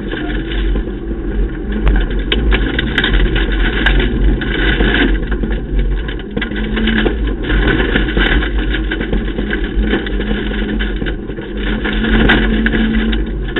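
Ford Ka rally car at speed on a gravel stage, heard from inside the cabin: the engine runs hard over steady tyre and gravel noise, with scattered sharp clicks.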